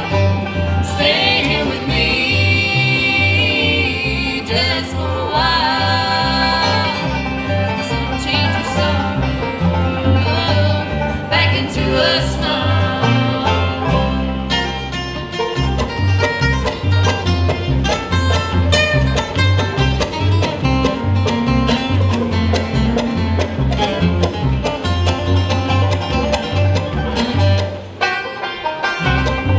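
Acoustic bluegrass band playing live: banjo, acoustic guitar, mandolin and upright bass, with a woman singing lead. About halfway through the singing gives way to an instrumental break of fast picked notes.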